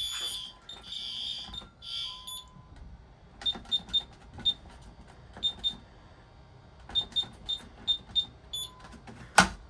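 Fire alarm tone cutting off at the start, then two short high tones, then a string of short high beeps in small groups, like keys pressed on a Honeywell alarm keypad to enter the code that silences the alarm. A sharp knock near the end.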